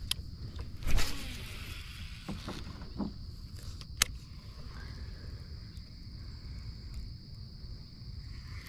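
Clicks and knocks of a baitcasting rod and reel being handled in a plastic fishing kayak, over a low steady rumble. A louder knock comes about a second in and a sharp click about four seconds in, with a faint steady high hiss throughout.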